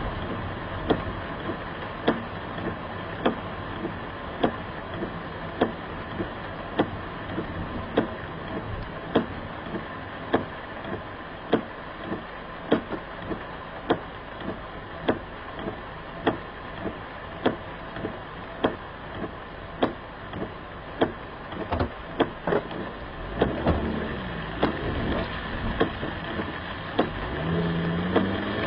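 Car heard from inside the cabin, with steady engine and road or rain noise and a sharp click about every 1.2 seconds. Near the end the engine revs up, rising in pitch.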